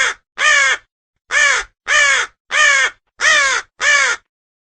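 Raven calling: a run of short, harsh croaking calls, each arching down in pitch, about two a second with one short pause after the first second, stopping about four seconds in.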